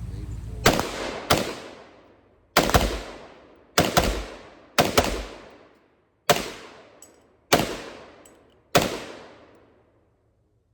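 A firearm fired in a slow string of about nine shots, roughly one a second with uneven spacing, each crack followed by a long ringing echo.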